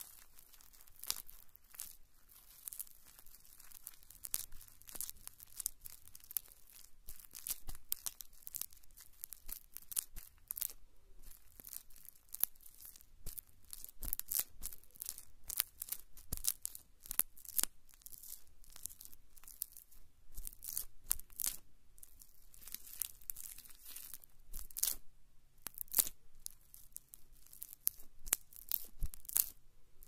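Skewered marshmallows burning, crackling with many irregular sharp pops.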